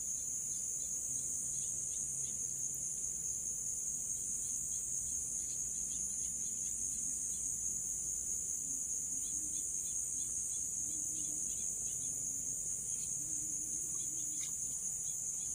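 Steady high-pitched insect chorus that goes on without a break, with faint scattered short chirps under it.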